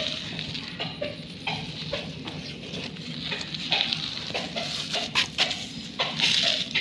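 A young dog mouthing a person's hand makes a series of short, irregular vocal sounds, along with scuffing and rustling.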